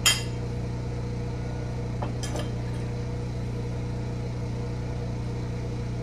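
A sharp clink of tableware right at the start, then a few lighter clinks and knocks about two seconds in, as a bowl and spoon are put down and a glass bottle is handled. Under it all runs a steady low hum from the home generator that is powering the house.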